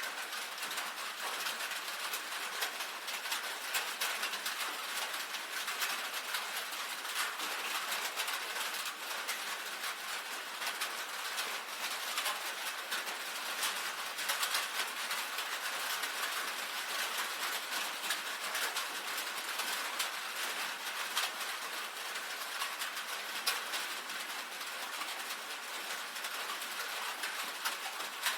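Steady rain on a tin roof: a dense, even patter of small sharp drop ticks over a steady hiss.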